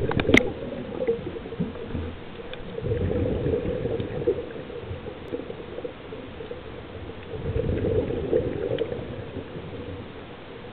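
Scuba diver's exhaled bubbles gurgling from the regulator, heard underwater, in two surges about three and seven and a half seconds in, with quieter stretches between breaths. A sharp click near the start.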